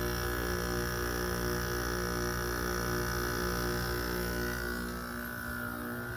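RA51k window air conditioner running: a steady electrical hum with a higher whine over it. About five seconds in, the low rumble briefly dips and the whine slides a little lower.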